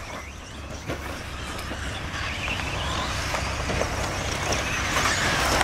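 Electric 1/10-scale RC off-road cars racing on a dirt track: motor whine and tyres on dirt, getting steadily louder, with a faint rising whine about halfway through.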